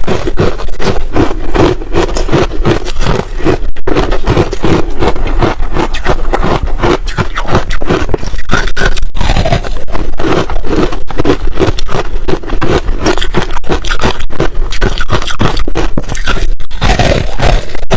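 Ice being chewed close to the microphone: a dense, loud run of rapid crunches with no pause.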